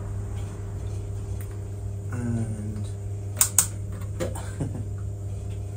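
A few sharp clicks of hand work on the motorcycle's rear brake during bleeding, two in quick succession about three and a half seconds in and another shortly after, over a steady low hum.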